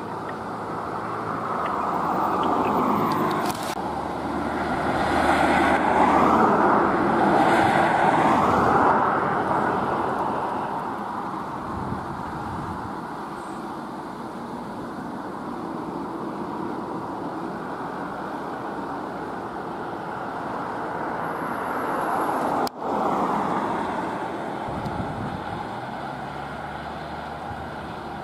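Road traffic: vehicles passing by on a main road, the loudest passes swelling and fading over the first several seconds, then a steadier traffic noise. A brief drop-out comes about two thirds of the way through.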